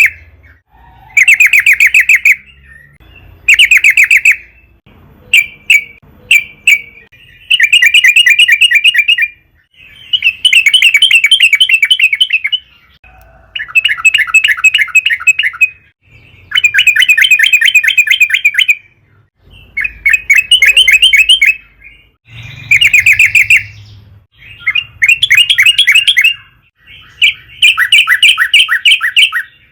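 Yellow-vented bulbul singing: loud, rapid bubbling phrases a second or two long, repeated again and again with short pauses between them.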